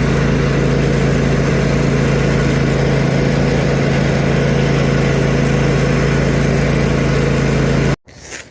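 A loud engine running steadily at a constant speed, with no revving. It cuts off abruptly about eight seconds in, followed by a brief burst of noise.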